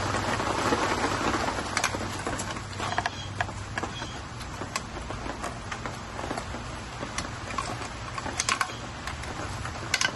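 Hands handling e-bike wiring and plastic plug connectors: rustling at first, then scattered light clicks, with a quick run of clicks near the end, over a steady low hum.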